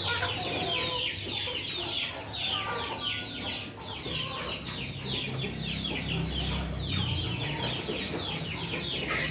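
Young chickens peeping continuously, a steady stream of short, high, falling peeps several a second. A low rumble sits underneath in the second half.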